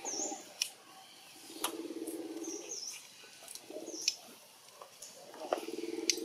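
Small birds chirping in quick high notes several times, over a low rattling call of rapid pulses that sounds for about a second in the middle and again near the end, with a few sharp clicks between.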